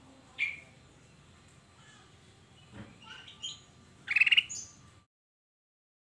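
Caged ruby-throated bulbul (kutilang emas) calling: one short call, a few soft chirps, then a loud rapid burst of notes about four seconds in.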